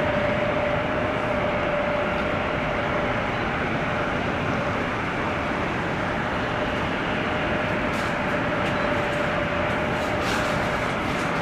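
Jet airliner noise across an airport ramp: a steady rumble with a single whining tone held at one pitch, and a few faint ticks in the second half.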